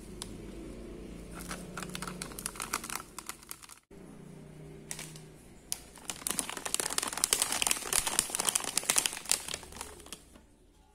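Agar-agar powder packet crinkling as it is handled and shaken out over a bowl of soy milk: quick crackly rustles, with a short break about four seconds in, then a denser run in the second half.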